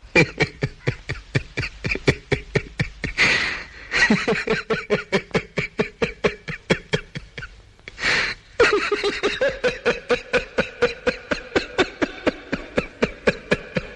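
Long fit of rapid, rhythmic laughter, about four to five pulses a second, broken by a drawn-in breath about three seconds in and again about eight seconds in.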